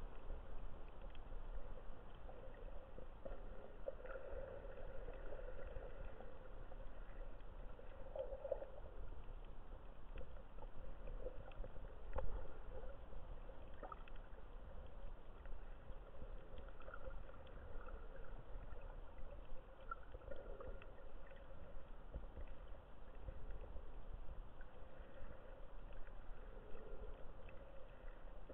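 Muffled underwater sound picked up by a camera held under the sea: a steady low rumble of moving water with soft gurgling swells every few seconds and scattered faint clicks.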